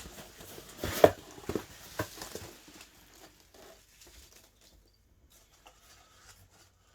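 Hands rummaging through a cardboard box of polystyrene packing peanuts: rustling with a run of sharp knocks, loudest about a second in, thinning out to light ticks.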